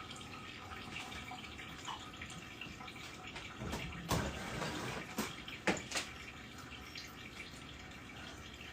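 Steady trickle of running water, with four sharp clicks or knocks near the middle.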